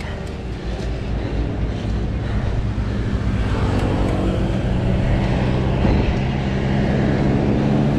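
Steady rushing road noise with a low hum while riding along a road by bicycle: wind on the microphone mixed with the drone of motor traffic.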